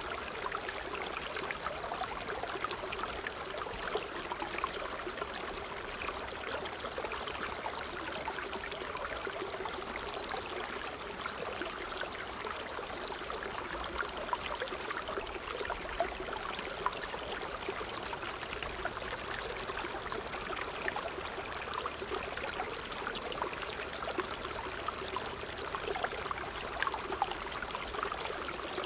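Creek water running and splashing over rocks: a steady, unbroken rush with many small splashes throughout.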